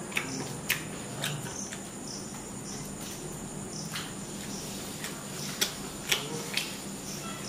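Mouth sounds of a person eating a chicken kebab off a skewer: biting and chewing with a few sharp smacking clicks, the loudest three coming quickly one after another about five and a half to six and a half seconds in. A steady high-pitched insect-like chirring runs underneath.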